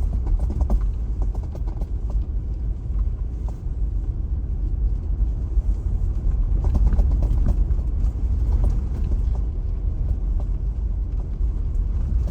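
Car driving over bumpy packed snow and ice, heard from inside the cabin: a steady low road rumble with frequent small knocks and rattles from the rough surface.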